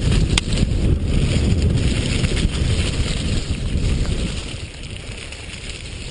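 Wind buffeting the microphone of a camera riding on a mountain bike descending a dirt trail, mixed with the rush of tyres on dirt and gravel and rattles from the bike, with a sharp click just under half a second in. The rush eases somewhat about four and a half seconds in.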